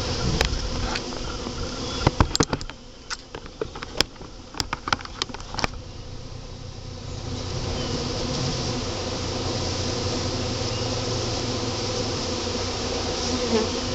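Swarm of Carniolan honeybees buzzing in a steady hum that swells about halfway through. Earlier there is a quick string of sharp knocks and clicks, the loudest sounds.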